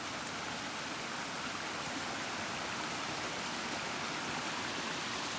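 Stream water rushing, a steady even hiss with no let-up.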